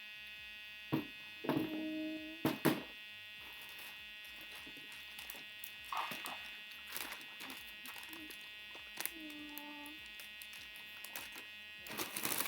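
A steady buzzing drone, with scattered knocks and clicks over it and two short low hums, about two seconds in and again near ten seconds.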